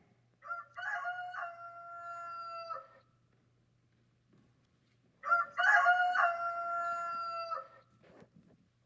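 A rooster crowing twice, two long cock-a-doodle-doo calls a couple of seconds apart, the second louder.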